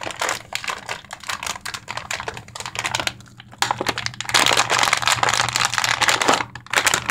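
Plastic dog-treat bag crinkling and crackling as it is worked open by hand, a dense run of crackles that is loudest from about four to six seconds in.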